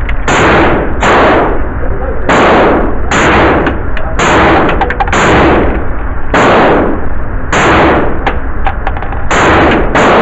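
Semi-automatic PPS-43 copy in 7.62x25mm fired as single shots, about ten at an uneven pace of roughly one a second. Each shot echoes off the walls of an indoor range.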